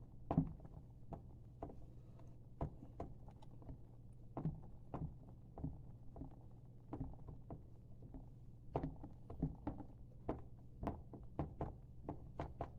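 Green sand being packed and tamped into a wooden core box: irregular dull knocks and thumps, about one or two a second, over a steady low hum.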